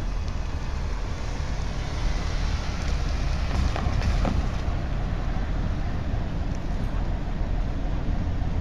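Diesel switcher locomotive's engine rumbling as it rolls slowly toward the listener, getting a little louder about two seconds in, with wind buffeting the microphone.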